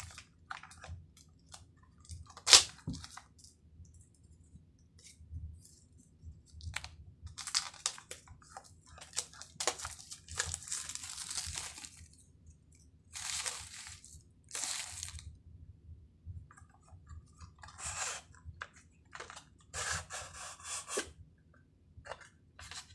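A small cardboard product box being handled and opened by hand, with its inner box taken out. It comes as short bursts of rustling and scraping with scattered sharp clicks, the loudest about two and a half seconds in.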